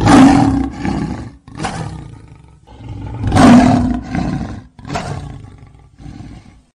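Lion roaring: two loud roars about three seconds apart, each followed by a few shorter, fading grunts.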